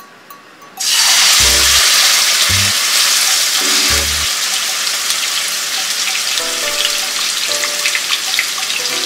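Marinated skinless chicken breasts sizzling in hot olive oil in a non-stick pan, starting suddenly about a second in as the meat hits the oil, then settling into a steady, slightly fading sizzle. Soft background music plays underneath.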